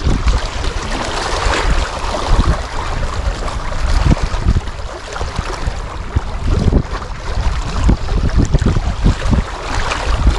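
Strong wind buffeting the microphone in gusts that rise and fall, over the sound of choppy water lapping.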